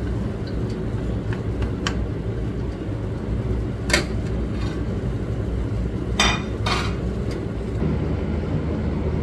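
Kitchen clatter: a few sharp knocks and clinks of utensils against dishes, one about two seconds in, one about four seconds in and a pair close together past six seconds, over a steady low rumble.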